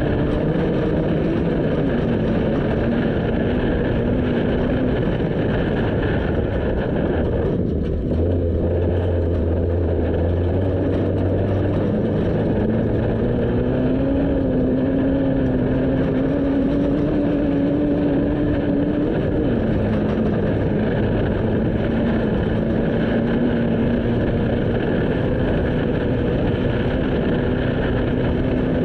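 A vehicle engine running continuously under the rough rush of driving noise. Its pitch dips about two seconds in, climbs again around the middle, and drops once more later on, as the engine speed changes while driving.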